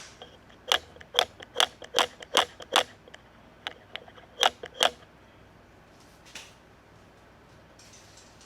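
A series of sharp mechanical clicks, about two to three a second, then a few more spaced out, stopping about five seconds in.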